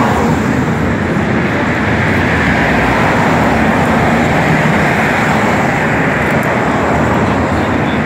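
Strong wind blowing over the microphone, a steady, loud rushing noise.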